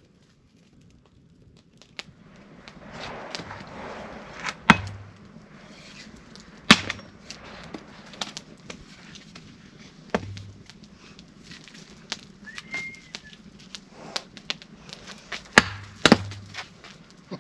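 Firewood being chopped: about five sharp, uneven strikes, each with a dull thud, two of them close together near the end, with lighter knocks and rustling between.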